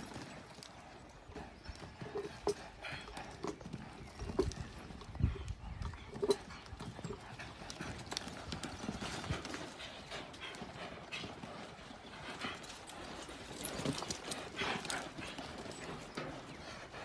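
Hoofbeats of a horse loping and turning on soft arena dirt: an irregular run of dull thuds, the loudest about five and six seconds in.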